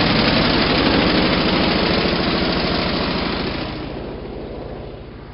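Snowblower's small engine running with an even, rapid firing rhythm. It grows quieter from about four seconds in.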